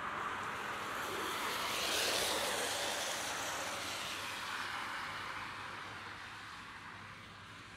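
A car passing on a wet road: tyre hiss swells to a peak about two seconds in, then fades away.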